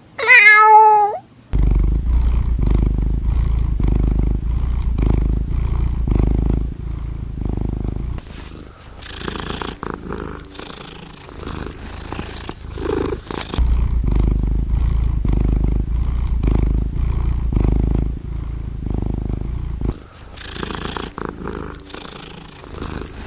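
A domestic cat gives a short meow, then purrs close up with a low, fine-pulsed rumble. The purr is strong for several seconds at a time and softer in between.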